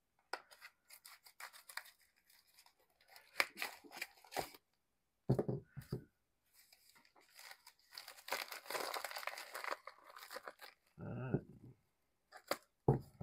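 Steel scissors snipping through a plastic bubble mailer in short, scattered cuts, then the mailer crinkling and tearing for a couple of seconds as it is pulled open.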